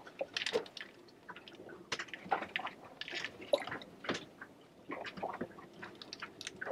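Diesel fuel trickling from a plastic jerry can's spout into an engine fuel filter housing, with small irregular drips and splashes: the housing being filled part way with diesel before the new filter element goes in.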